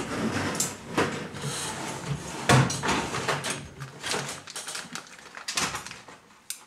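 Hands handling RC crawler kit parts and packaging: rustling with a run of small clicks and knocks, the loudest about two and a half seconds in.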